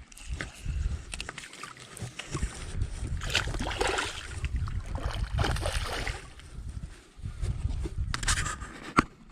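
Water splashing and sloshing with handling noise as a small hooked trout is brought in by hand, over a steady low rumble. A sharp click near the end.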